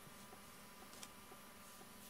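Near silence: faint room tone with a steady low hum and one light click about a second in.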